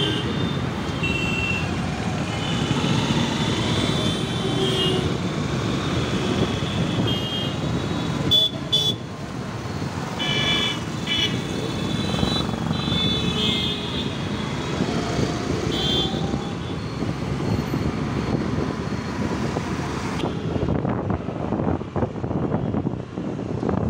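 Busy street traffic heard from a moving scooter: steady engine and road noise. Short horn beeps from the surrounding motorbikes and cars come again and again through the first two-thirds, then grow scarcer.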